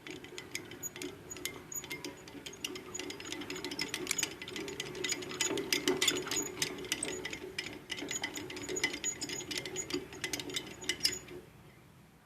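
Homemade drill press driven by a washing machine motor and gearbox, running with a steady hum and a stream of irregular clicks and rattles from the gears. It stops about eleven seconds in.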